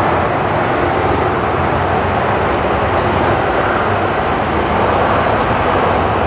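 Boeing 737 jet engines at takeoff thrust, a loud steady roar as the airliner accelerates down the runway.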